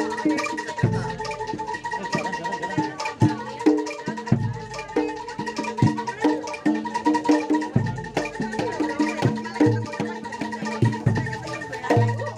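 Live Javanese gamelan music for kuda lumping: quick rhythmic drum strokes over struck metal percussion, with a held high tone.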